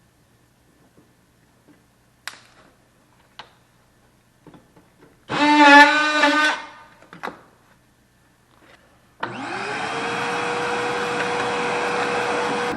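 Electric drill running in two bursts: a short run of about a second with a wavering pitch under load, then a longer steady run from about nine seconds in that spins up quickly and holds one pitch. A few light clicks and taps come before.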